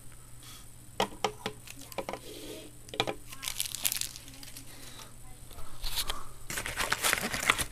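Paper and cardboard packaging rustling and crinkling as the box contents are handled, with scattered light clicks and taps; the rustling gets denser near the end.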